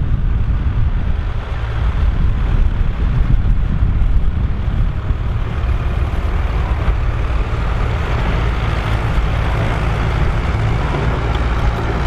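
International Harvester tractor's diesel engine running steadily under load as it pulls a JF manure spreader whose rear beaters are flinging manure. The rushing noise of the spreader grows louder in the second half.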